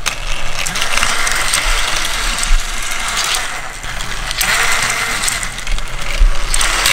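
Battery-powered Trackmaster toy engines running on plastic track: a steady whir of their small motors and gears, with wheels rattling over the track, swelling twice as the engines come close.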